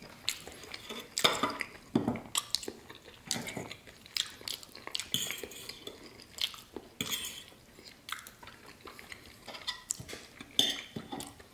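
Metal fork and knife clinking and scraping against a ceramic plate in irregular taps.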